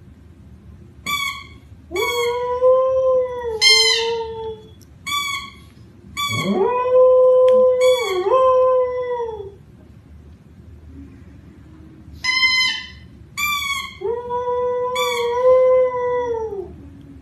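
Samoyed howling: a run of short, yelping howls and longer drawn-out ones. The longest lasts about three seconds and dips briefly in pitch before it falls away.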